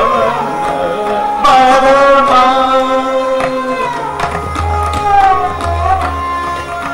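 Dhrupad singing in Raag Adana: a male voice holds and glides between notes over a tanpura drone, with drum strokes keeping the beat and deep bass strokes from about halfway through.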